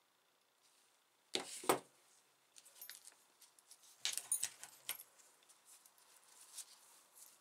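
Steel twist drill bits clinking and rattling against each other as they are handled and set down. The clinks come in two short clusters, about a second and a half in and again around four to five seconds in, with a few faint ticks between.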